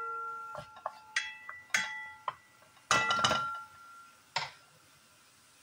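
Wooden spoon knocking and scraping against a nonstick frying pan while stirring chopped onion, the pan ringing briefly after several of the knocks. The knocks stop about four and a half seconds in.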